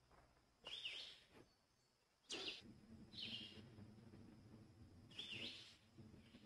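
A small songbird calling faintly: four short, clear call notes, each a quick slide in pitch, spaced one to two seconds apart. A faint low rumble sits underneath from about two seconds in.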